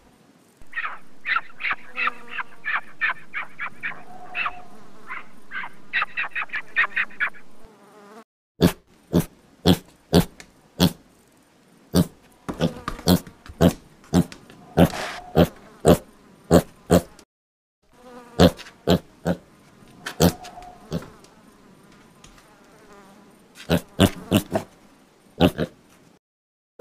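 Piglet sounds: first a quick run of short, high squeaks, about four a second, over a steady hiss. Then a series of short grunts, about two a second, in groups with brief pauses between them.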